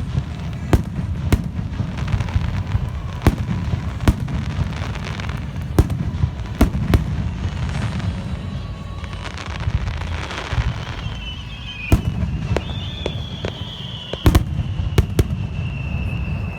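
Aerial fireworks bursting in quick succession: many sharp bangs over a continuous low rumble and crackle. About two-thirds of the way through, a wavering high tone joins in and drifts slowly down in pitch.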